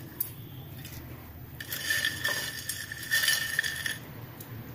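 Crispy fried noodles rustling as a hand picks them off a plate and scatters them onto bowls of soup, in two short bursts about two and three seconds in, with a light click at the start.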